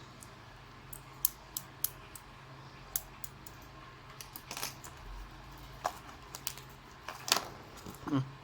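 Scattered light clicks and taps of small hard parts from a hair-cutting kit being handled, over a steady low hum.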